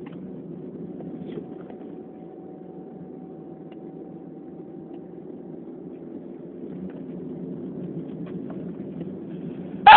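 Steady low background hum with a faint, steady higher tone for a few seconds near the start.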